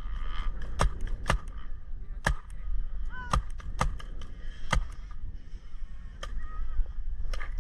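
Paintball markers firing: sharp single pops at irregular intervals, about eight in all.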